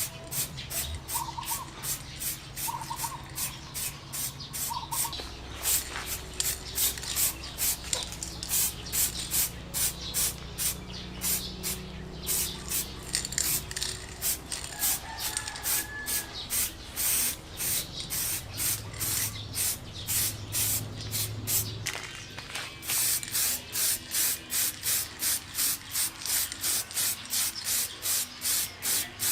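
Aerosol spray paint hissing out in short, evenly repeated bursts, about two or three a second. Roosters crow in the background.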